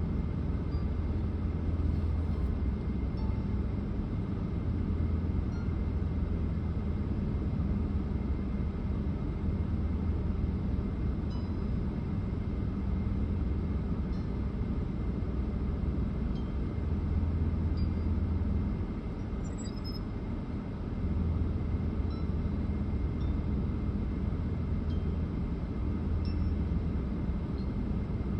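Steady low rumble of a car's engine and cabin, heard from inside the car, swelling and easing every few seconds and dipping briefly about two-thirds of the way through, with faint scattered small clinks.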